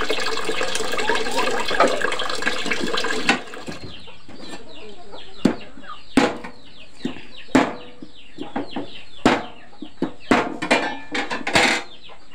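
Chickens clucking, with irregular sharp knocks about once a second. Water runs steadily for the first three seconds or so, then stops.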